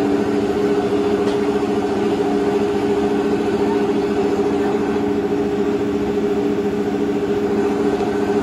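Steady machine hum that holds one unchanging pitch throughout.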